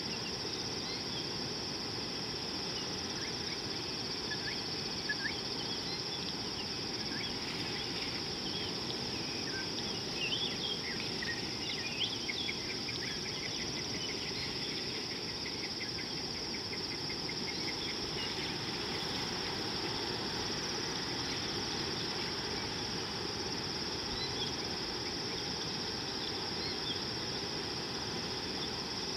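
Steady high-pitched chorus of insects, with scattered bird chirps and, near the middle, a short run of evenly repeated bird notes, over a low steady background rush.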